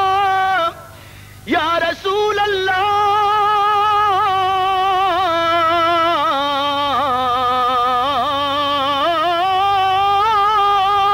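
A male naat reciter singing a long, drawn-out melismatic phrase with heavy vibrato in a high voice. He breaks for breath about a second in, comes back with a quick swooping slide, sinks to lower held notes in the middle and then climbs back up.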